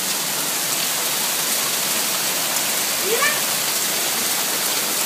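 Hard rain falling steadily, a dense even hiss of water hitting the ground and surfaces.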